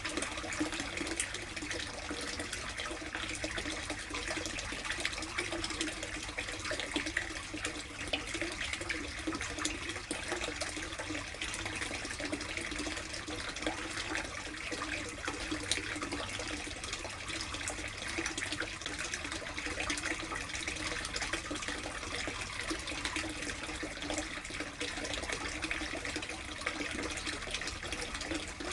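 Water running and splashing steadily into a koi tub, an even trickling and splashing with fine crackle.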